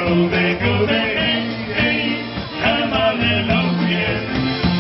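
A polka band playing live, with a bass stepping back and forth between two notes on the beat under wavering melody lines.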